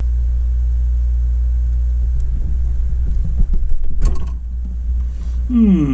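Refrigerator running with a steady low hum, with knocks and rustling from about two seconds in and a sharp click about four seconds in.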